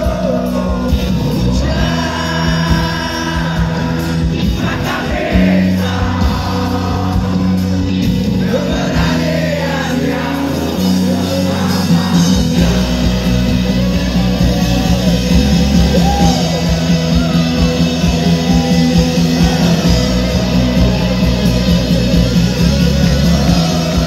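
Rock band playing live through a concert PA: electric guitars, bass and keyboards with singing, the music growing fuller and more rhythmic about halfway through.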